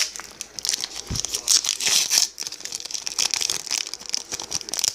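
Wrapper of a Topps baseball card pack crinkling and tearing as it is ripped open by hand, a dense irregular crackle throughout.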